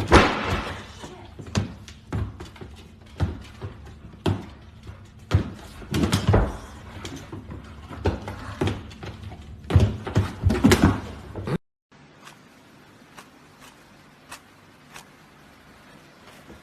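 A run of irregular loud thuds and bangs for about eleven and a half seconds, then an abrupt cut to quiet room tone with a few faint clicks.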